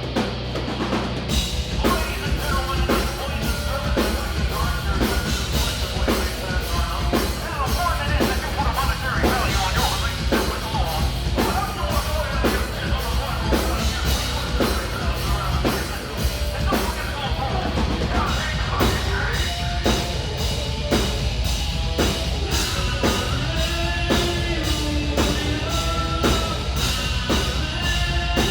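Live progressive metal band playing loud, with a steady drum beat of about two hits a second. The full band comes in hard right at the start.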